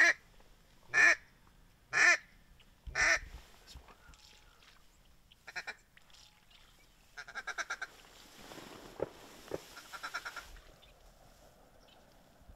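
Duck quacking: four loud single quacks about one a second, then after a pause a quick run of short notes and some softer calling.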